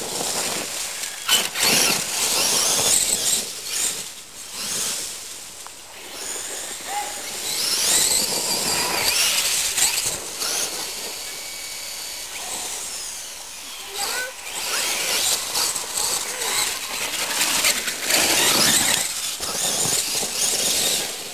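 Radio-controlled monster truck's electric motor and drivetrain whining high, the pitch rising and falling again and again as it accelerates and slows, with loud bursts of noise as it drives over the dirt track.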